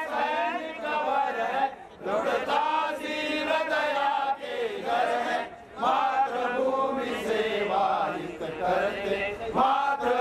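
A group of men chanting together in unison, phrase after phrase, with short breaks about two and five and a half seconds in.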